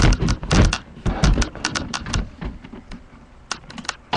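Desktop computer case and an expansion card being handled: a quick series of plastic-and-metal clacks and knocks with some dull thumps, loudest in the first second and a half, then scattered clicks.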